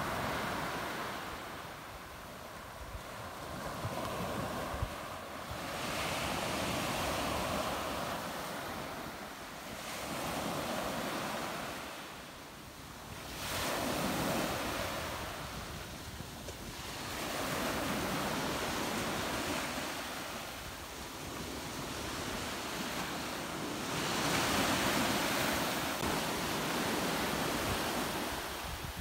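Small waves breaking and washing up a sandy beach, the surf swelling and falling away every four to five seconds.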